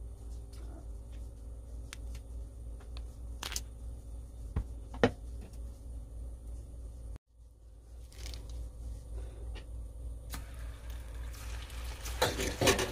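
Plastic piping bag rustling as its tip is snipped off with scissors, with a few sharp clicks, the loudest about five seconds in. Near the end, deep-frying oil sizzles and crackles loudly as fish-cake paste is squeezed into it.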